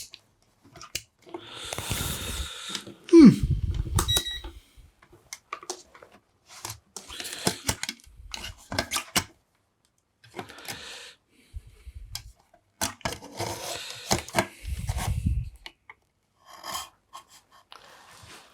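Workbench handling noises: scattered clicks, knocks and rustling as the power supply and test probes are handled, with a short falling tone about three seconds in.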